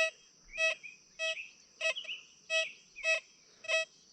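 XP Deus 2 metal detector beeping, one short tone about every 0.6 s, as its coil is swept over a US quarter lying under a fridge magnet. The detector is picking up the coin through the magnet. Birds chirp faintly between the beeps over a steady high hiss.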